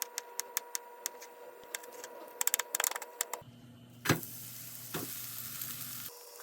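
Cooking sounds: a run of sharp, irregular clicks and taps, then from about three and a half seconds a steady hiss of food sizzling in a frying pan, with one loud knock about four seconds in.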